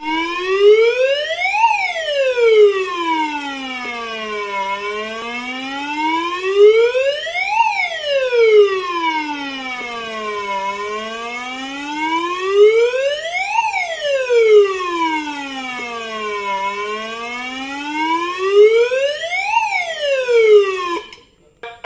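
Plant emergency warning siren wailing, its pitch gliding slowly up and down about every six seconds, four times over, then stopping abruptly near the end.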